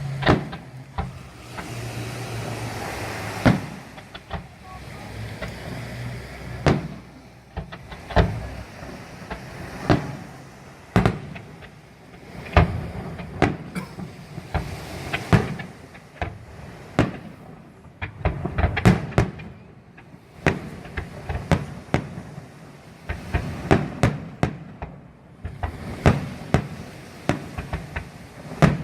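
Fireworks display: aerial shells bursting in sharp bangs, each with a short echo. They come a second or two apart at first, then faster and overlapping. A low steady hum runs under the first few seconds.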